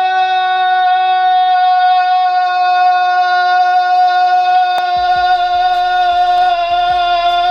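A young person's voice holding one long sung note at a steady pitch, the drawn-out last vowel of a shouted "Nacho!", for the whole stretch and breaking off near the end.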